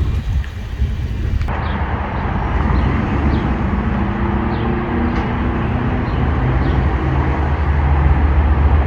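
A motor-vehicle engine running with a deep, steady rumble; its pitch shifts a little as it works. A few faint short high chirps come over it.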